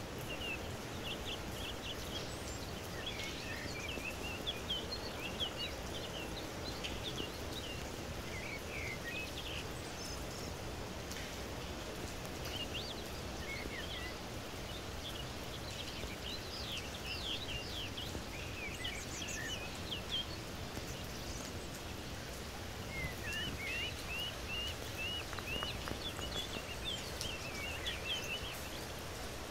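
Steady rain falling, an even hiss, with small birds chirping in quick runs of short high notes on and off, thinning out for a while midway.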